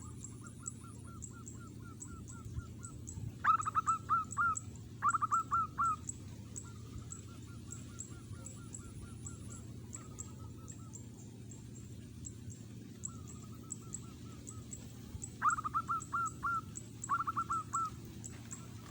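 Zebra dove (perkutut) cooing in its staccato territorial song: a running series of soft rapid coos, broken twice by louder pairs of quick rolling phrases, a few seconds in and again about two-thirds through. A faint high ticking runs under it.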